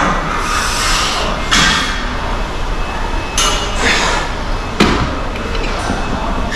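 Hard breathing in rushes about a second apart after a set of dumbbell curls, with several sharp knocks of gym weights; the loudest knock comes just before 5 seconds in.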